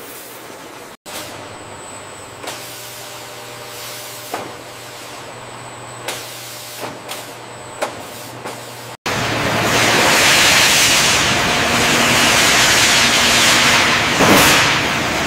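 Machinery sound effects: a low hum with a string of short, sharp mechanical clicks and snaps, then about nine seconds in a sudden cut to a much louder, steady hissing rush of industrial machine noise.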